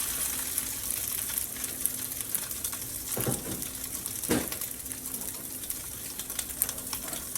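Italian sausage sizzling as it starts to fry in an oiled pan, with a couple of short knocks a little over three and four seconds in.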